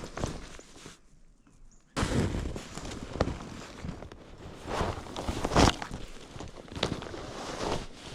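Footsteps crunching through snow, irregular and uneven. They stop for about a second of near silence early on, then resume.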